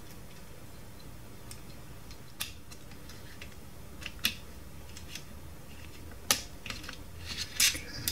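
A few small, sharp clicks and taps of a tool and fingers on the plastic gears and frame of a toy drumming bunny's mechanism as a glued gear is pushed into position, the loudest a bit after six seconds, over low steady room noise.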